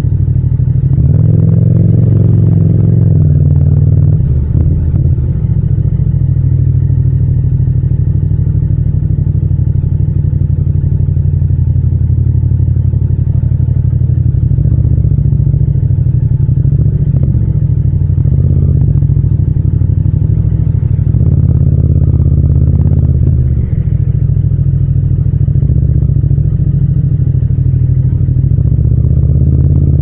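Yamaha MT-07 (FZ-07) 689 cc parallel-twin engine running at low revs in slow stop-and-go traffic, the revs rising and falling a little, with brief pickups near the start and about two-thirds through.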